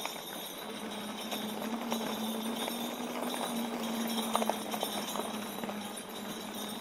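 Mooncool TK1 electric trike riding over a rough, bumpy trail: bells on the trike jingle and clatter all the time, over a steady hum from the electric motor that drops out briefly now and then.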